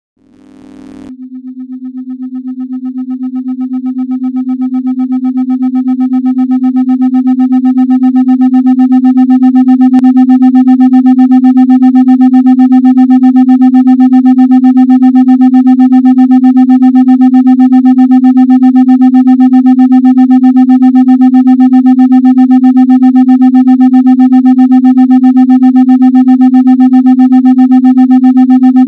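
Electronic 256 Hz meditation tone with a few faint higher overtones, fading in over the first several seconds and then holding steady. It throbs quickly, set to a 3.5 Hz pulse meant for brainwave entrainment.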